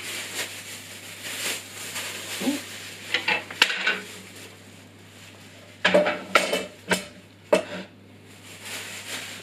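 Plastic packaging rustling and crinkling as bandsaw parts are unpacked, with sharp metallic clanks and knocks as flat sheet-metal parts are handled: a few about three seconds in and a louder cluster about six seconds in.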